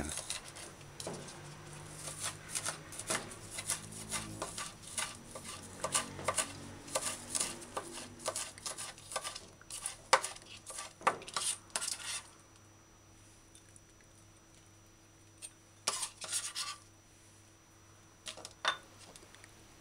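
Kitchen knife dicing scallion on a plastic cutting board: quick, irregular taps for about the first twelve seconds, then only a few scattered knocks.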